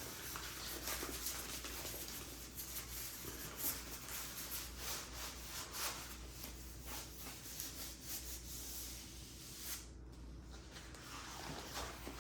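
Handling noise from a rolled diamond-painting canvas being rubbed and unrolled: scattered faint rustles and soft scrapes.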